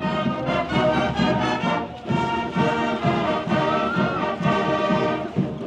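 Marching band playing, brass instruments over a steady drum beat.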